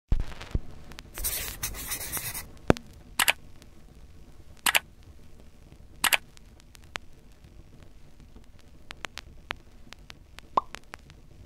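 A string of short, separate clicks and pops, the loudest right at the start and a little under three seconds in, with a brief rustling noise about a second in.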